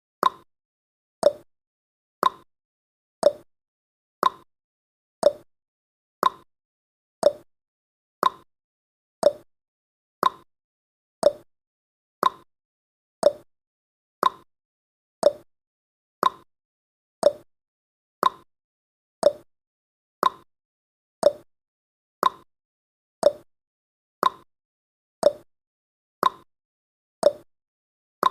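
Clock-style tick-tock sound effect of a countdown timer, one sharp click each second, alternating between a lower tick and a higher tock.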